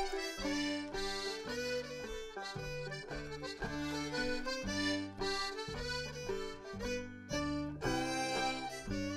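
Live acoustic band of button accordion, fiddle, banjo and upright bass playing an Irish barndance tune together, the accordion prominent over a steadily stepping bass line.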